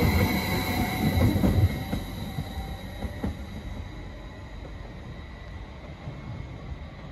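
A TPF Stadler FLIRT electric multiple unit pulling away, its last car passing close with a rumble of wheels and running gear and a thin high whine. Just under two seconds in the sound drops off sharply as the rear of the train goes by, then fades as the train draws away down the track.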